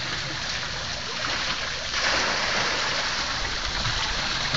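Waterfall: falling water makes a steady, even hiss that grows louder about two seconds in.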